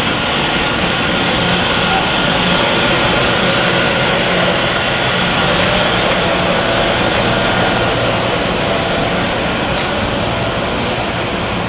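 Wall-mounted air conditioner units running: a steady whirring noise with a low hum, unbroken throughout.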